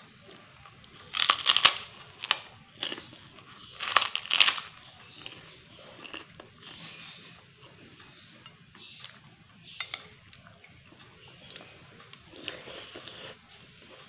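A person eating a crunchy kerupuk cracker with rice: two loud bouts of crunching, a second or so in and about four seconds in, then quieter chewing crunches.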